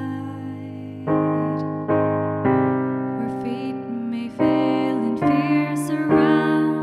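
Digital piano playing slow, sustained chords, with a new chord struck roughly every second.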